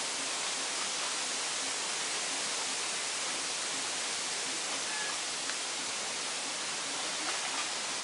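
Steady, even hiss of outdoor ambience, with a faint short chirp about five seconds in; it cuts off suddenly at the end.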